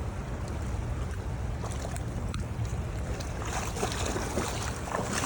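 Wind rumbling on the microphone over moving water. Scattered clicks and splashy crackle come in over the last two seconds, loudest at the very end, as a hooked trout is brought in.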